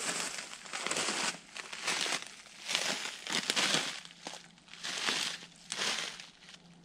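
Boots crunching and rustling through dry fallen leaves, one step after another at a walking pace.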